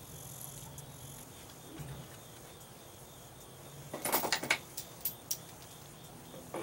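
Insects chirp steadily in the background. About four seconds in there is a short clatter of wood and chain links knocking, then two sharp clicks, as a board and chain are handled at a roof beam.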